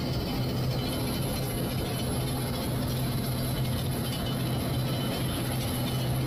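Boeing Vertol 107 tandem-rotor helicopter taxiing on the ground, its twin turboshaft engines and both rotors running with a steady low hum and a fast, even blade chop.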